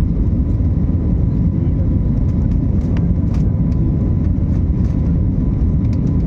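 Airliner cabin noise: a steady, loud, low rumble of jet engines and airflow, with a faint thin whine.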